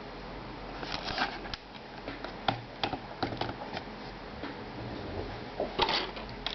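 Scattered light clicks and taps with short rustling bursts over a steady low hum, the loudest cluster near the end, typical of small parts and tools being handled at a workbench.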